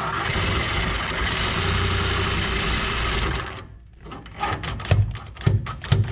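A reciprocating saw cutting through a steel exhaust pipe runs steadily, then stops about three and a half seconds in. A run of irregular knocks and thumps follows.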